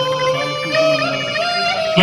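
Slow instrumental background music: long held notes over a low sustained note, the melody stepping upward in the second half.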